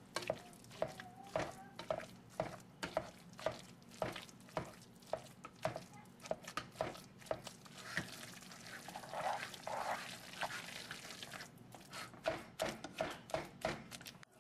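Potato masher working boiled sweet potatoes in a pot: soft squashing strokes about twice a second, each with a light knock on the pot bottom. The strokes run together for a few seconds past the middle, then resume.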